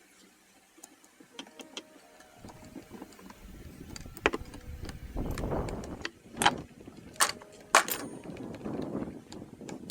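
Small metal engine parts clinking and knocking as they are handled, about five sharp clinks, some ringing briefly, with rustling handling sounds between them.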